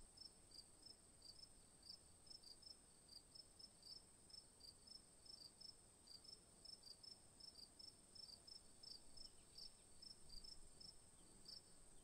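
Faint crickets: a steady high buzz with chirps repeating about three to four times a second.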